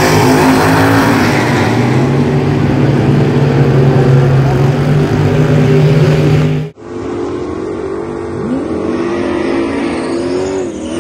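Two drag-race cars launching off the line and accelerating hard at full throttle, with loud engines held at high revs. About two-thirds of the way through, the sound cuts abruptly to quieter engine running with a couple of rising revs.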